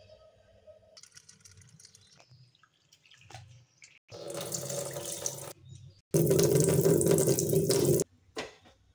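Water splashing into a steel bowl of yellow split dal as a hand swishes and rubs the lentils to wash them. It comes in two loud spells, about four and six seconds in, and the second is louder and longer and stops abruptly.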